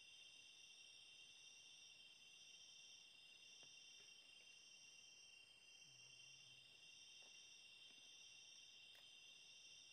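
Faint chorus of night insects, cricket-like trilling held steady in several high pitches, with a few faint ticks.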